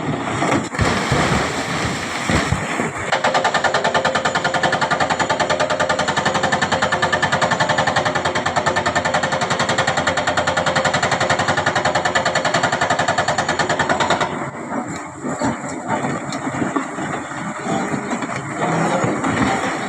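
Excavator-mounted hydraulic breaker hammering rock: a rapid, even run of blows starts about three seconds in and stops about fourteen seconds in. Before and after it, the excavator's engine runs with scattered irregular knocks.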